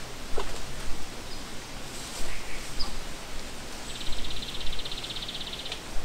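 Wind rustling through the leaves of riparian trees, with birds calling: short, sharp call notes scattered throughout, and a fast, high trill lasting about two seconds from about four seconds in.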